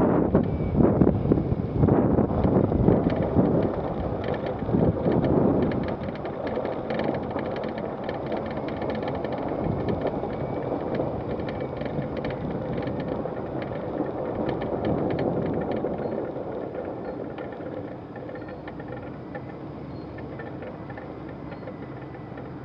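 Wind buffeting the microphone in gusts, over the steady running of a vehicle engine; the gusts ease after about six seconds and the sound slowly fades toward the end.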